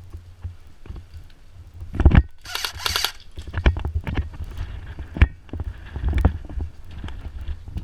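Knocks, clicks and rustling from a player's camera and gear as they move during an airsoft game, over a low rumble. About two and a half seconds in there is a short, dense rattling burst.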